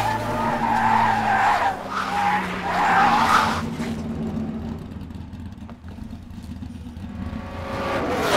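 Cars skidding, tyres squealing in several bursts over the first three and a half seconds, over a steady low hum; after that a quieter rumble of vehicle noise.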